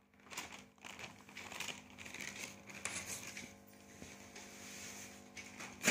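Thin paper fighter kites rustling and crinkling as they are handled and swapped, in a run of small irregular crackles, with a louder crackle near the end.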